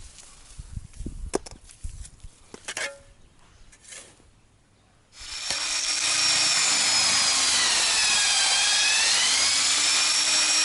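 Faint knocks and scrapes, then about five seconds in an electric drill with a mixing paddle starts up and runs steadily, stirring sand-and-cement mortar; its whine sags in pitch midway as the motor slows under the load of the mortar, then picks back up.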